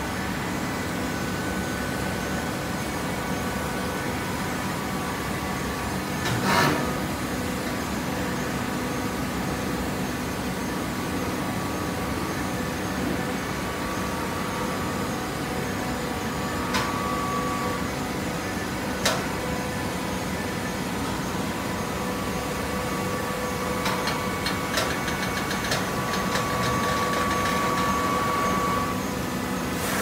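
TCM hydraulic horizontal baler running: a steady hum from its motor and hydraulic pump. A loud clunk comes about six seconds in, then single sharp knocks and a run of clicks, and the hum grows a little louder near the end.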